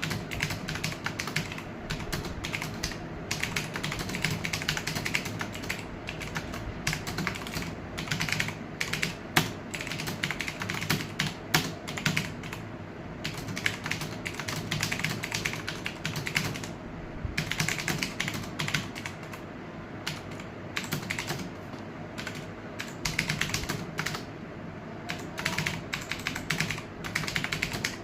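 Fast continuous typing on a computer keyboard, keystrokes clattering in quick irregular runs with a few short pauses.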